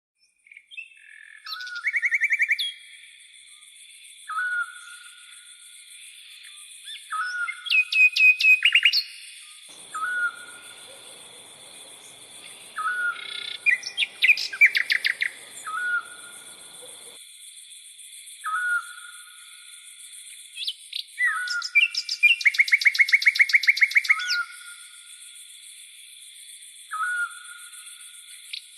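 Birds singing: one bird repeats a short call about every two to three seconds, while others give fast rattling trills, loudest around 8 s, 15 s and 23 s, over a steady high-pitched hiss.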